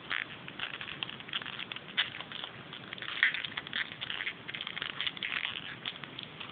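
Hands handling a chocolate surprise egg and its packaging: rapid, irregular crinkling and small clicks, as of foil and plastic being worked.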